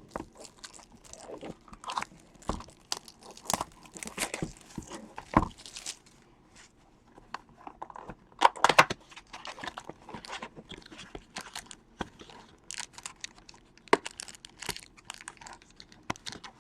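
Plastic wrapping on a box of trading cards crinkling and tearing as the box and its packs are opened, with scattered clicks and taps of card stock, loudest in a burst of crackling about halfway through.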